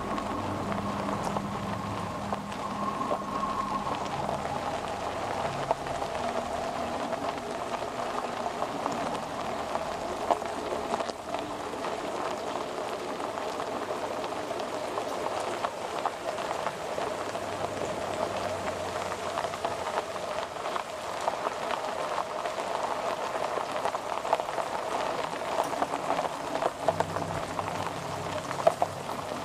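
Experimental electronic noise-ambient music: a dense crackling, rain-like noise texture over a sustained mid-pitched drone. Low held tones sound at the start, fade out, and come back near the end.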